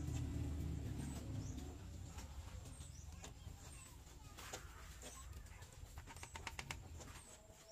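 A low rumble fading away over the first couple of seconds, then faint outdoor background with scattered sharp clicks, a quick run of them near the end, and faint bird calls.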